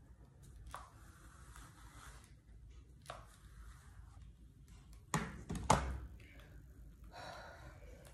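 Hair rustling and hissing as long strands are pulled through a hair straightener and handled, in a few soft strokes about a second long. Two sharp knocks about half a second apart come a little past the middle.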